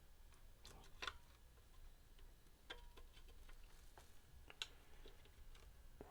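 Faint, scattered clicks and light taps of small metal guitar hardware (washers and nuts) being handled and fitted, about half a dozen over a few seconds, the sharpest about a second in.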